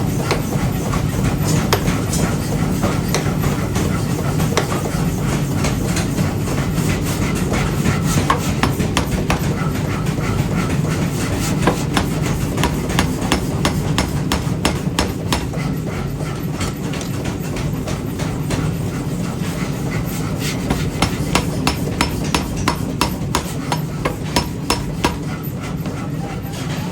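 Metal being struck over and over with many sharp, irregular impacts, typical of hammer forging of iron, over a steady low machinery rumble. The strikes come thicker and louder near the end.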